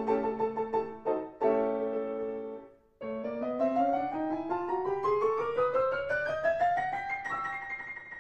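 Solo piano accompaniment for a silent film: held chords, then a short break about three seconds in. After the break a passage climbs steadily in pitch for about four seconds and settles on a high held note over repeated chords.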